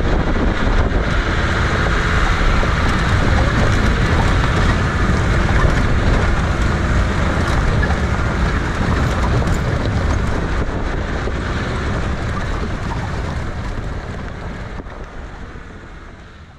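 Off-road jeep driving along a rough dirt track, its engine and tyre noise mixed with heavy wind buffeting the microphone through the open side. The noise fades out near the end.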